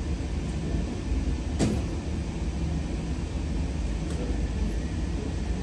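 Steady low rumble of an indoor shooting range's air handling, with one sharp crack about a second and a half in and a much fainter one about four seconds in.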